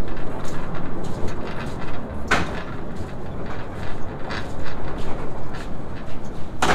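Steady rumbling noise of a semi truck, with two sharp knocks, one about two seconds in and one near the end.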